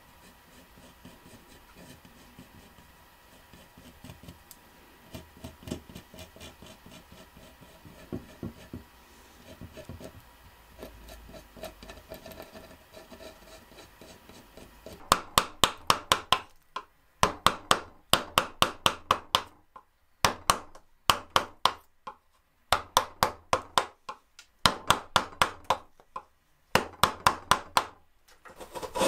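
Faint scratching of a pencil drawing a curve on a wooden block, then, about halfway through, loud bursts of quick rasping strokes of a hand tool across the wood, with short pauses between bursts, as the block end is rounded into a scroll shape.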